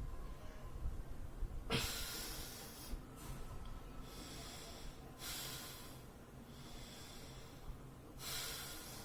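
A person breathing deeply and audibly through the nose as a yoga breathing exercise. There are three louder, noisy breaths about three seconds apart, starting about two seconds in, with softer breaths between them.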